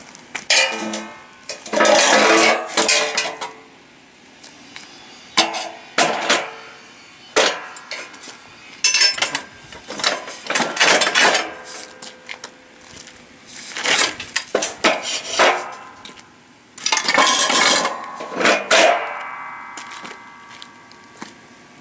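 Metal boat hoist frame channels clanking and knocking together as they are shifted and fitted, with clinks of bolts and hardware; an irregular series of knocks, some of them ringing on briefly.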